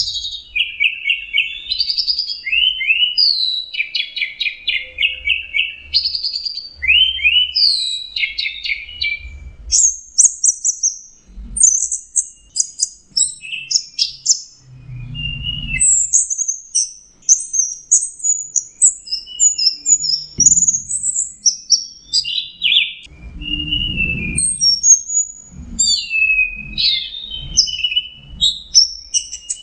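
Orange-headed thrush (anis merah) singing a long, continuous song of rapid, varied whistled phrases and trills, high-pitched, with little pause between phrases.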